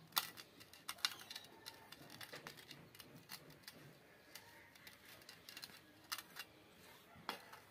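Faint wet rubbing and splashing as a hand spreads water over a stone grinding slab, with a few sharp light clicks, the loudest near the start and about a second in.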